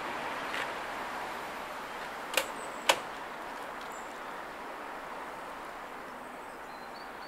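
Two sharp metallic clanks about half a second apart, the second the louder, over a steady background hiss.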